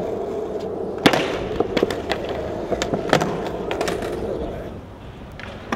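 Skateboard wheels rolling on smooth concrete with a steady hum, broken by sharp clacks of the board hitting the ground, the loudest about a second in and another near three seconds. It is a trick attempt that ends in a fall, and the rolling dies away near the end.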